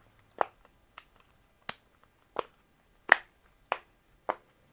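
A large simple dimple fidget toy's silicone bubbles being pressed one after another: seven sharp clicking pops, about two-thirds of a second apart.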